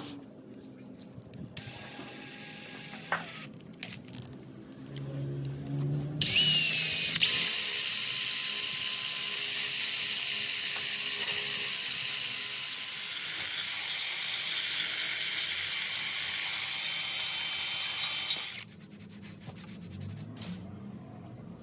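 A power tool starts about six seconds in, runs steadily with a hissing, high-pitched noise for about twelve seconds, then stops abruptly. Before it there are only faint scattered clicks and handling sounds.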